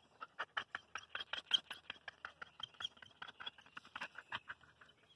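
A dog pawing and scratching at loose dirt: faint, quick, irregular scratches, several a second.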